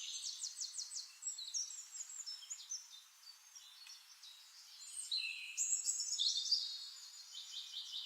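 Birds singing: a string of high chirps and fast trills, busiest in the first second or so and again from about five seconds in, with a quieter stretch in between.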